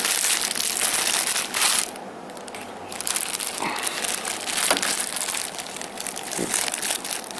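Clear plastic packaging bag crinkling as it is handled and turned over, with a brief lull about two seconds in.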